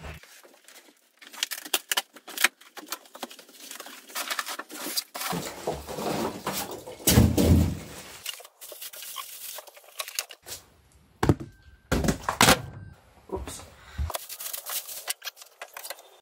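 Cardboard packaging being torn and pulled apart, with plastic wrapping crinkling. Several heavy thuds, the loudest a little past the middle, as the wrapped thicknesser is lifted out and set down on the bench.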